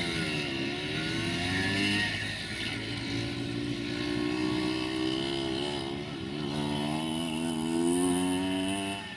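Diesel engine of a UAM216 rail track-maintenance vehicle pulling away with a herbicide wagon, its revs dipping and climbing several times as it moves off.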